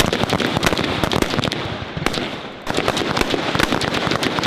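Rifle fire from a firing line of several shooters at once: many sharp shots overlapping at irregular spacing, with a brief lull about halfway through.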